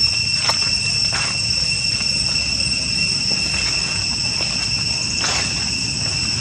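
Steady high-pitched drone of insects, such as cicadas, holding two unchanging tones, with a few faint short squeaks about half a second and a second in and again near five seconds.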